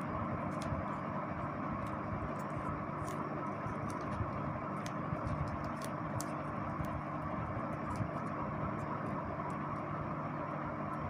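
Steady background rumble and hiss with a faint hum, with scattered faint clicks and rustles as hands wrap insulation around the wire joints of a small condenser microphone capsule.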